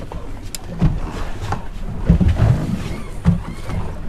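Offshore fishing boat at sea: a low rumble of engine and hull noise with a few irregular low thumps.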